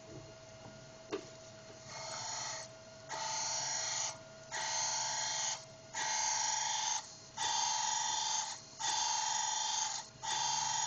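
Cam grinder's abrasive wheel cutting the base circle of an SOHC VTEC camshaft lobe: a hissing grind that comes and goes in bursts about a second long, repeating roughly every one and a half seconds as the cam turns against the wheel. It starts about two seconds in, gets louder after the first pass, and runs over a steady machine hum.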